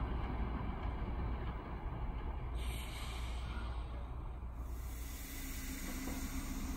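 DR1Am diesel multiple unit running with a steady low rumble at the station. From about five seconds in, a steady engine hum comes in as the train stands close by.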